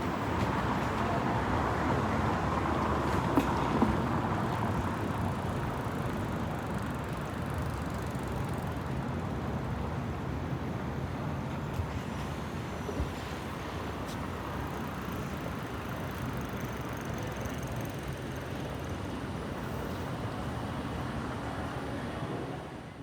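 City street traffic noise: a steady wash of passing vehicles, a little louder in the first few seconds, with a few short knocks, fading out at the very end.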